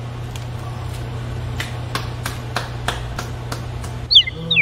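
Steady low hum with a run of sharp, evenly spaced clicks, about three a second. Near the end come loud high chirps that glide down and repeat, an edited-in cartoon bird-like sound effect.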